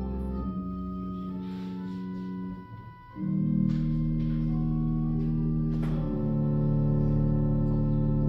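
Instrumental music of slow, held chords that change every second or so. It drops away briefly about three seconds in, then a fuller, louder chord enters.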